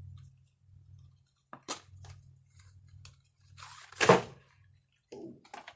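A short clatter of small parts being dropped, loudest about four seconds in, with scattered clicks of parts being handled before and after.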